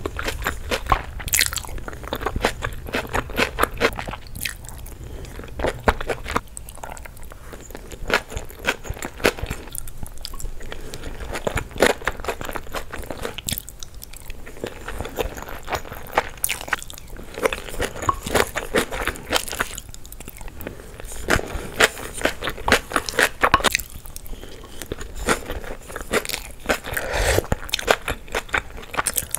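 Close-miked chewing of a mouthful of fried rice: a dense run of small clicks and smacks from the mouth, coming in bouts with short lulls between bites.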